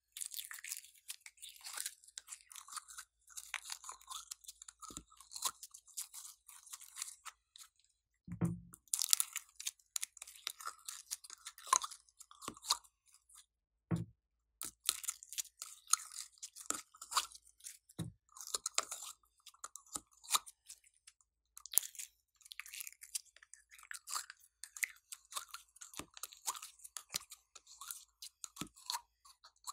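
Glossy slime being squeezed and pulled out of a plastic cube container's cells and dropped into a glass dish, with continuous sticky crackling and popping. A few low thumps come through now and then.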